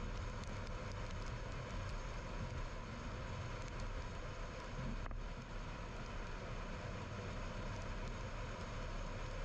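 Steady road and tyre noise of a car being driven, with a low, even engine hum, heard from inside the cabin.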